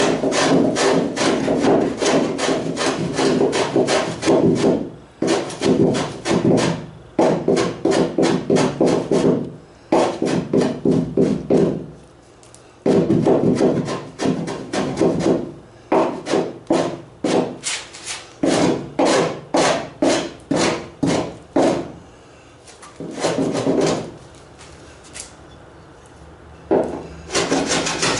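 A hand tool worked over wood in quick rasping strokes, about four a second, in runs of a few seconds separated by short pauses. This is hand-shaping of the solid wood stem on the plywood boat's bow.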